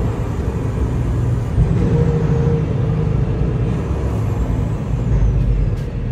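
Kenworth T680 semi truck cruising, heard from inside the cab: a steady low rumble of diesel engine and road noise.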